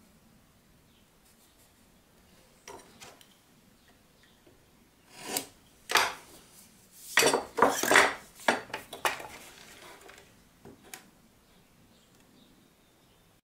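Tools and pieces being handled on a workbench: a few light knocks, then about five seconds in a burst of clattering, knocking and clinking lasting some four seconds.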